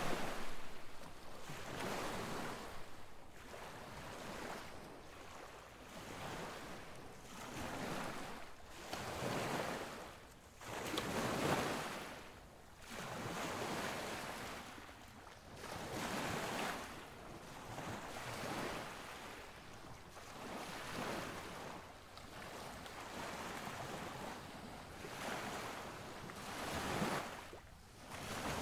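Ocean waves washing in and out in a steady run of rushing swells, one every second and a half to two seconds.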